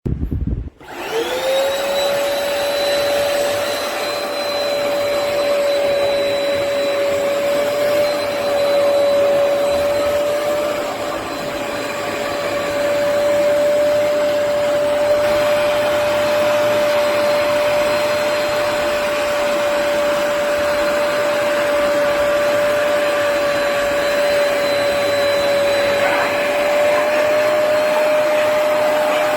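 Hoover PowerDash Pet+ compact carpet cleaner switched on: its motor spins up within about a second to a steady high whine and keeps running.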